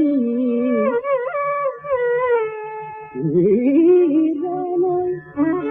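Carnatic classical music: one melodic line moves through ornamented phrases over a steady drone. A held, higher phrase fades away about three seconds in, and a low note then slides up with wavering ornaments.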